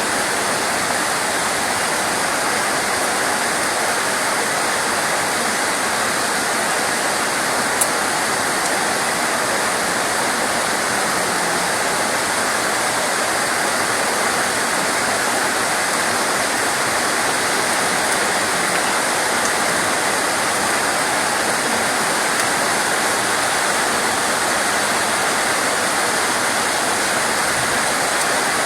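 Steady heavy rain, a dense even hiss with no single drops standing out. There is one sharp tick about eight seconds in.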